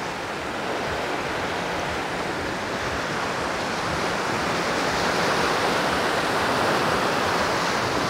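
Small sea waves washing steadily over the shallows at the shoreline, growing a little louder in the second half.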